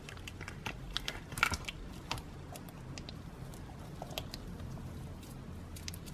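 Slime being squished and poked by hand, giving irregular small clicks and pops, the loudest about one and a half seconds in, over a steady low hum.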